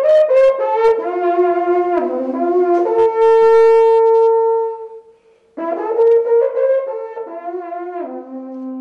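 Long wooden Wallachian shepherd's horn blown as a tune of held notes that step from pitch to pitch, with a short break for breath about five seconds in before it goes on.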